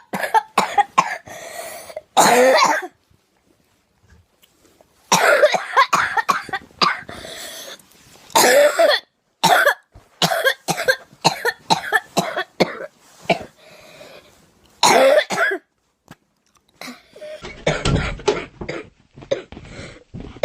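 A girl coughing in repeated bouts of rapid coughs, with short quiet breaks between the bouts.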